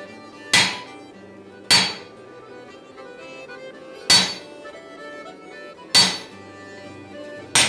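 Hand hammer striking an eye punch driven into a hot steel axe billet on an anvil: five sharp, ringing blows one to two seconds apart, punching the axe's eye from the second side.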